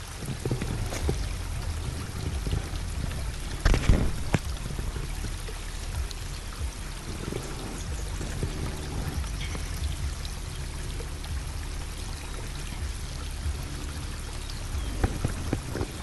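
Steady rush of running creek water, with a few short knocks of camp gear being handled about four seconds in and again near the end.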